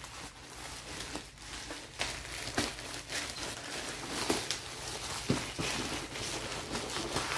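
Plastic packaging crinkling and rustling as a poly mailer bag is pulled open and a bubble-wrapped box is drawn out, with several sharp crackles.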